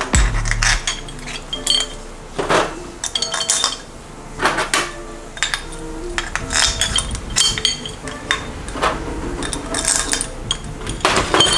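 Steel pieces and screws clinking and knocking together as they are handled and fitted onto a hub jig: irregular short metallic taps, each with a brief ring.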